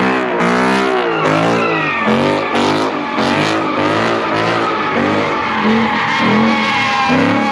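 Car doing donuts: its engine revs up and down again and again as the spinning rear tyres squeal and smoke.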